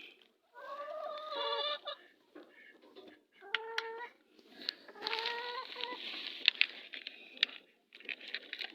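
Domestic fowl calling: three drawn-out calls, with a few sharp clicks between them.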